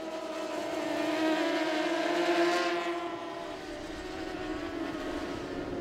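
Superbike racing motorcycles' engines at high revs, a steady engine note that swells to its loudest about two and a half seconds in and then fades.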